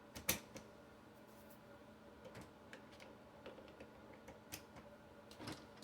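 Faint, scattered plastic clicks and taps, the sharpest about a third of a second in, from a Canon MG5220 inkjet printer's parts being handled and fitted back together.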